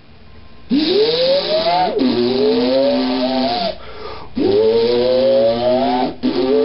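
Time-machine sound effect: a series of four rising, siren-like tones, each a second or two long, over a hiss.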